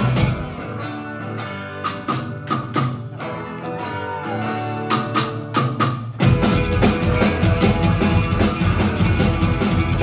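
Live rock band playing, with electric guitars and a standing percussionist's drum. Just after the start the band drops back to a quieter, sparser stretch with scattered sharp hits, then the full band comes back in loud about six seconds in.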